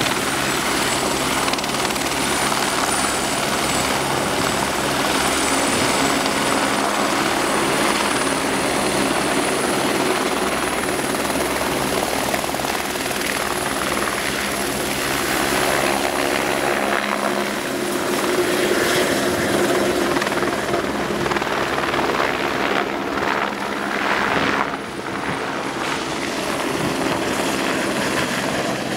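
Single-engine turbine helicopter of the AS350 AStar type running with its rotor turning, then flying low past. There is a continuous turbine whine that climbs slowly in pitch over the first ten seconds, over the steady beat and rush of the rotor.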